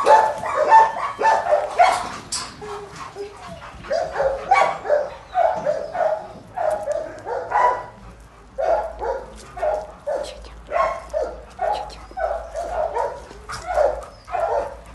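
Shelter dogs barking over and over in short, repeated barks, with a brief lull about three seconds in.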